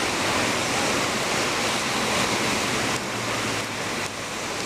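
Heavy downpour: a steady hiss of rain falling on the street and pavement, with cars passing on the wet road. It eases slightly about three seconds in.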